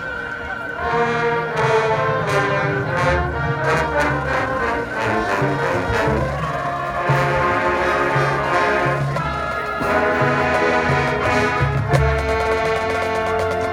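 Marching band playing: brass holding full chords that change every second or so over a pulsing low brass line, with regular drum hits.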